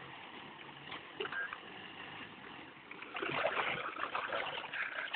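Nissan Frontier pickup driving off-road through water and mud, the splashing and sloshing picking up about three seconds in.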